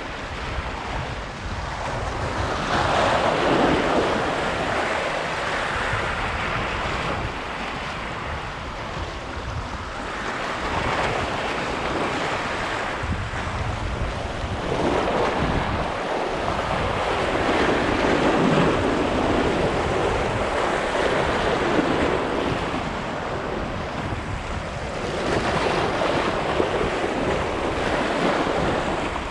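Sea waves washing onto the shore, surging every few seconds, with wind buffeting the microphone.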